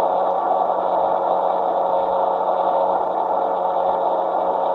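Steady, muffled, distorted noise of an FPV video receiver's audio channel, with a faint steady hum under it.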